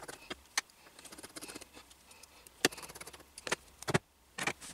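A precision screwdriver driving small screws into the frame of a resin printer vat's FEP film: short runs of fine rapid ticking broken by several sharp clicks, the loudest about two and a half seconds in.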